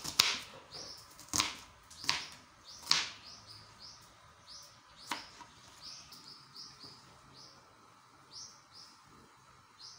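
Knife chopping red onion on a plastic cutting board: four sharp chops in the first three seconds and one more about five seconds in. Small birds chirp repeatedly throughout.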